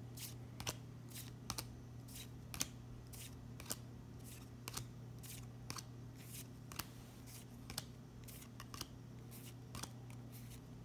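Dragon Ball Super trading cards being flicked one at a time from the back of a hand-held stack to the front, each card giving a short crisp snap, about two a second. A faint steady low hum runs underneath.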